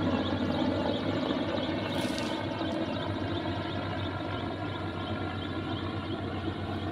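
Helicopter carrying a slung bucket flying away overhead, its rotor and engine noise steady and slowly fading.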